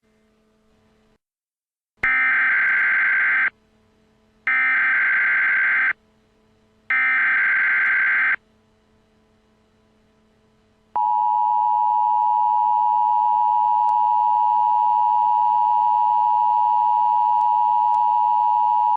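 Emergency Alert System alert opening: three bursts of SAME header data tones, each about a second and a half long and a second apart. About 11 seconds in comes the steady two-tone EAS attention signal, which marks the start of a new emergency broadcast.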